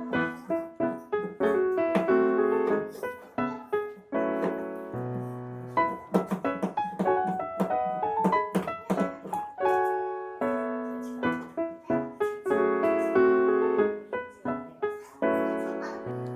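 Background piano music: a light melody with chords, notes struck and decaying in quick succession.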